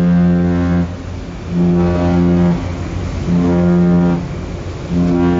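Ship's horn sounding a series of short, low-pitched blasts, each about a second long with brief gaps between: repeated short blasts like these are the warning signal to nearby boats.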